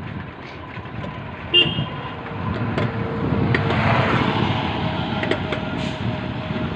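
KTM motorcycle under way, its engine and the rush of wind and road noise running steadily and growing louder about halfway through. A short vehicle horn toots about a second and a half in.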